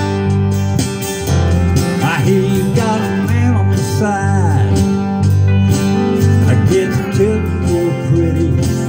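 Acoustic guitar strummed in a country style, with a bass line that alternates between notes under the chords. A pitched line bends up and down over the guitar a couple of seconds in.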